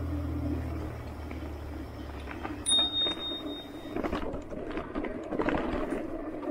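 A bicycle handlebar bell rings once, a bright ding about three seconds in that rings on for about a second, over the clicking and rattling of a mountain bike on a dirt trail. A low steady hum fades out over the first couple of seconds.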